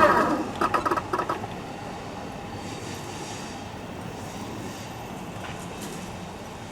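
Railway level-crossing warning bell ringing loudly, cutting off about a second and a half in. A steady rumble of a train on the line and street noise follows.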